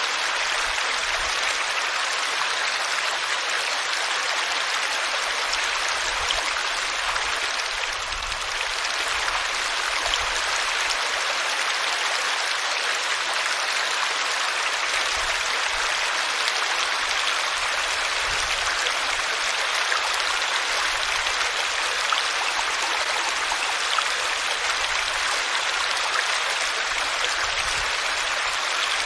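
Water flowing and splashing over rocks in a small stream, a steady rushing with small bright splashes.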